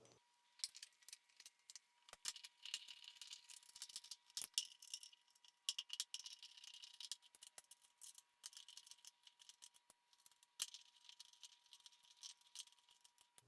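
Hand tools tightening the bolts and lock nuts of a motorcycle fender eliminator: faint, irregular clicking and rattling of metal.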